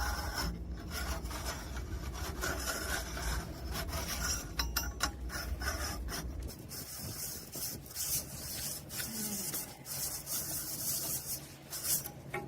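Hand file rasping in repeated strokes on the alternator pulley of a truck's APU, scraping off rust build-up that has been snapping its belts.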